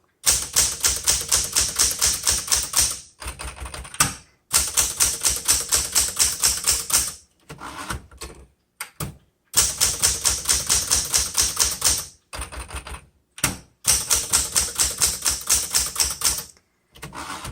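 Smith Corona Galaxie II manual typewriter being typed on: quick runs of sharp key strikes, several a second, in four spells of two to three seconds with short pauses between.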